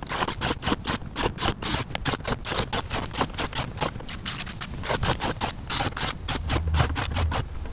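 Cordless drill boring a quick succession of holes through the wall of a plastic bucket: a rapid, irregular run of sharp crackling and scratching as the bit cuts and breaks through the plastic.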